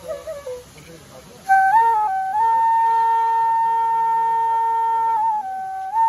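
Bamboo transverse flute (bansuri) playing a Garhwali folk tune: a short phrase fades out, a brief pause follows, then the melody climbs in steps to one long held note of about three seconds and drops to a lower note near the end.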